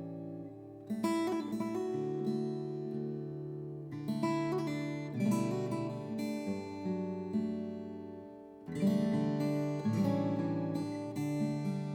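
Background music: acoustic guitar strummed chords, with a new strum about every four seconds.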